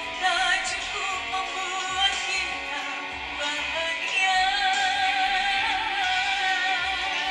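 A woman singing with musical accompaniment in a live stage performance, her voice wavering in vibrato, holding one long note in the second half.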